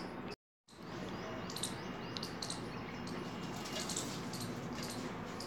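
Small birds chirping now and then in short high calls over a steady outdoor background hiss. The sound drops out completely for a moment just under a second in.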